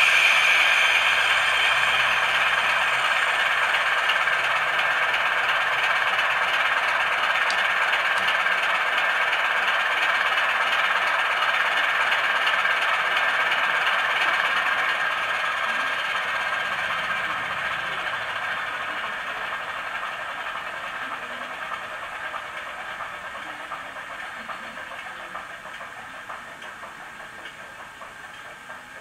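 Recorded class 33 diesel engine sound played through the small speaker of a model locomotive's DCC sound decoder: a steady, tinny engine clatter with no deep bass. About halfway through it begins to fade, dying away steadily.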